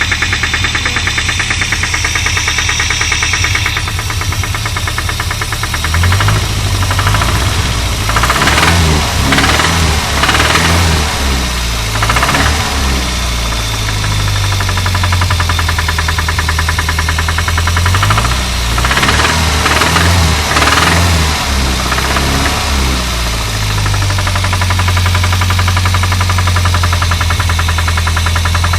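Renault 25 engine running with a rapid, regular knock from inside the engine. The engine speed rises and falls a few times, around a third of the way in and again about two thirds in. The cause of the knock is unknown to the owner.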